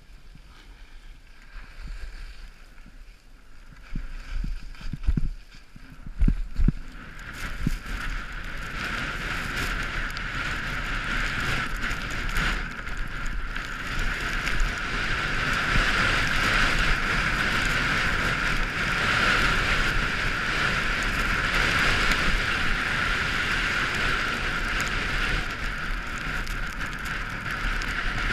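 Wind rushing over the microphone of a camera moving downhill, mixed with the hiss of sliding over snow. A few low thumps come about five to seven seconds in; then the hiss grows louder and stays steady.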